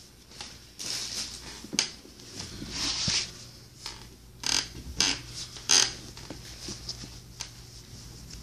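Fabric rustling and scuffing as socks and shoes are pulled on by hand, in irregular bursts with a few sharper scrapes, the loudest a little past halfway.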